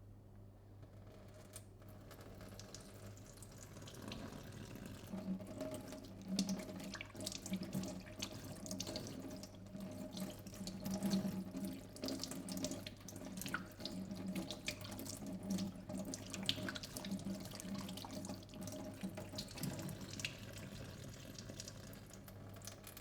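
Water running and splashing, with many small spatters; it builds up a couple of seconds in and eases off near the end, over a steady low electrical hum.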